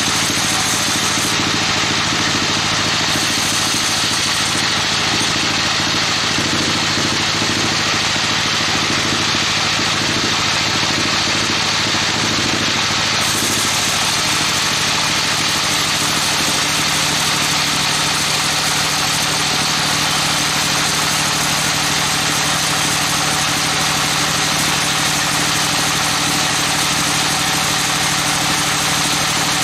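Band sawmill running steadily as its blade saws through a trembesi (rain tree) log: a constant machine drone with an even hiss of cutting over it. The hiss gets brighter about 13 seconds in.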